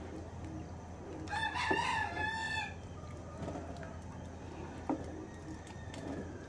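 A rooster crowing once, a call of about a second and a half, over the faint scraping of a wooden spoon stirring thick beef stew in a pot. One sharp knock comes about five seconds in.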